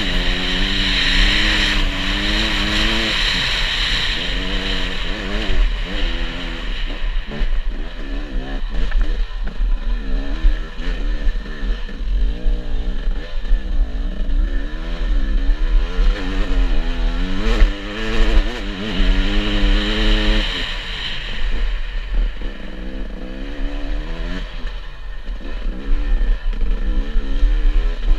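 Enduro dirt bike engine revving up and down over and over as the throttle is worked, its pitch rising and falling in quick swells.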